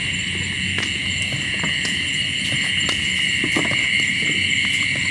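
Night insect chorus, a steady high-pitched trilling, with a few faint clicks.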